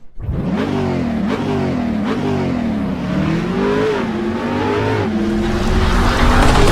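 Sports car engine revving, its pitch climbing and dropping about once a second, then holding steadier and growing louder near the end.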